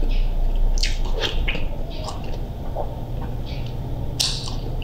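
Close-up wet mouth sounds of a person eating ripe mango flesh: soft bites, sucking and lip smacks, with a louder wet smack about four seconds in.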